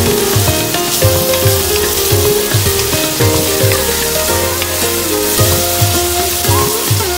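Diced red onions sizzling in oil in a metal frying pan as a wooden spatula stirs them, with a steady hiss throughout. Background music with a steady beat plays underneath.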